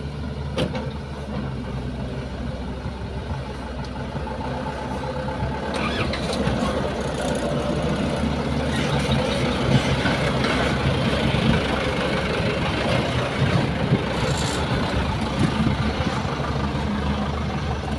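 Diesel engine of a Mitsubishi Fuso dump truck driving off and passing close by, getting louder about six seconds in, with a second dump truck's engine following near the end.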